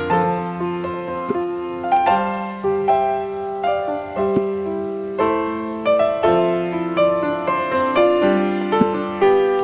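Background piano music: single notes and chords struck one after another and left to ring out.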